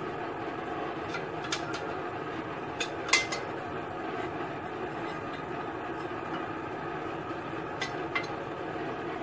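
Steady rushing hiss of an oxy-acetylene torch flame, with a few sharp metal clinks, the loudest about three seconds in.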